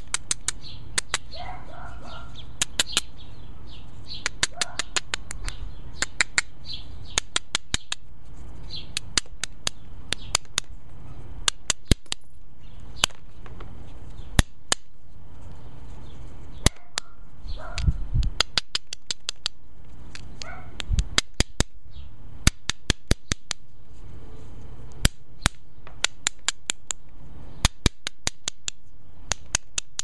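Flintknapping: a rounded hammerstone tapping and scraping along the edge of a flint biface, giving sharp stone-on-stone clicks in quick clusters, with a few heavier knocks.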